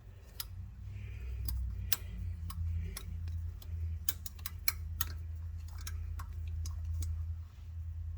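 Irregular small metal clicks and ticks as a Helicoil thread insert is wound into a tapped hole with its install tool, over a steady low hum.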